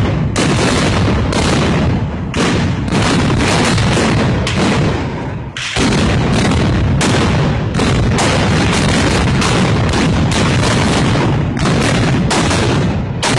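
Dense, near-continuous black-powder gunfire from many arquebuses (arcabuces) fired together, one shot running into the next, with a brief lull about five and a half seconds in.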